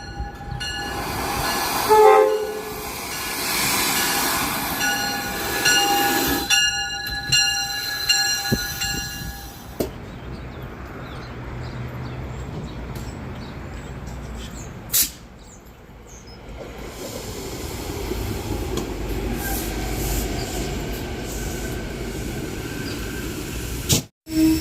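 SEPTA Regional Rail train sounding its horn in two long blasts over the first ten seconds, then running through the station with steady wheel-and-rail rumble.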